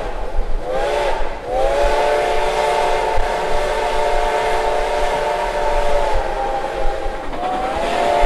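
Steam locomotive whistle blowing at the head of the train, over the train's steady rolling rumble. A short blast comes about a second in, then a long blast of about five and a half seconds, and another begins near the end; each blast slides up in pitch as it opens.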